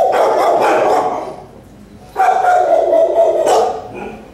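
Shelter dogs barking in their kennels, in two loud stretches each over a second long, the second starting about two seconds in.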